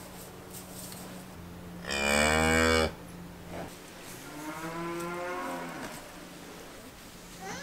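A cow mooing twice: a loud, short moo about two seconds in, then a softer, longer moo that falls in pitch at its end.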